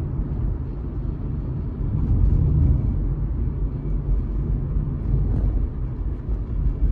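Steady low road and engine rumble inside a moving car's cabin, a little louder from about two seconds in.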